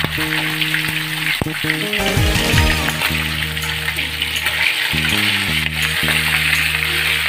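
Chicken drumsticks deep-frying in a pan of hot oil over a low flame: a steady bubbling sizzle, with the pieces turned in the oil partway through. Background music with held notes plays underneath.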